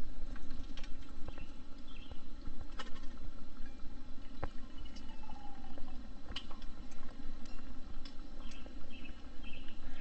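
Hot coffee poured from a Stanley stainless steel pot into a stainless steel cup, a steady stream of liquid with small clicks. A few birds chirp in the background.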